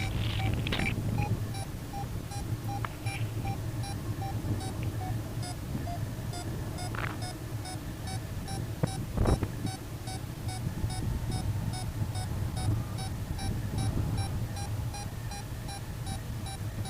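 Rapid electronic beeping, about three short high beeps a second, over a steady low wind rumble.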